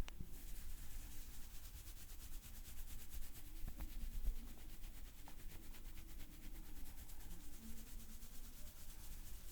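Hands rubbing and massaging, a soft, uneven rubbing noise with a couple of faint clicks.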